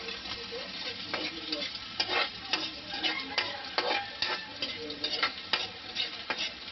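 Garlic and onion sizzling in hot oil in a wok as a spatula stirs them, with repeated sharp scrapes and knocks of the spatula against the pan, about two a second.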